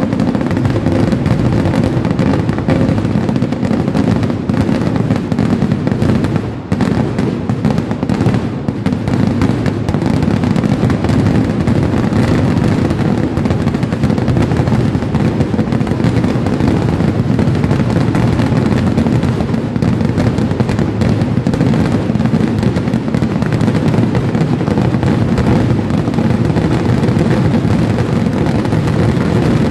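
Kerala vedikettu fireworks barrage: aerial shells and firecrackers bursting so fast that the blasts merge into one continuous, loud din, with a brief dip about six and a half seconds in.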